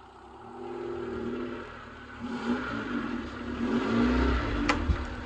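Honda Civic wagon's four-cylinder engine running, revved up and down several times in the second half. There is a sharp click near the end.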